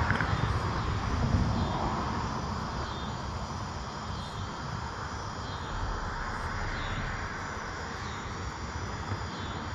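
Steady outdoor background noise: a constant low rumble with a faint high-pitched pulsing over it, repeating about every second or so, slightly louder in the first two seconds.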